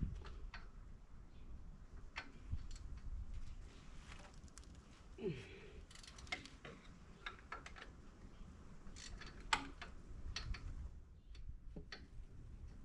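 Scattered light clicks and knocks, like tools or metal parts being handled, over a low rumble.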